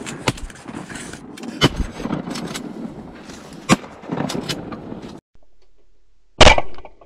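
Shotgun shots and gun handling in a duck boat blind: sharp cracks among clicks, knocks and rustling for about five seconds. Then the sound cuts out and there is one very loud bang near the end.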